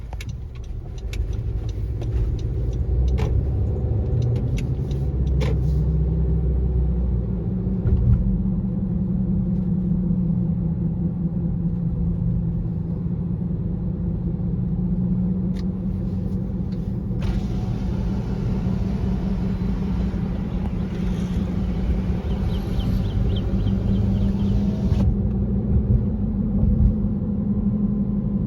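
A 2018 Honda CR-V heard from inside the cabin while driving at speed: road rumble under a loud, steady humming drone that sets in a few seconds in. The owner suspects a bad hub assembly or bad tires, and the hum was absent with the front wheels lifted. A hiss joins for about eight seconds past the middle.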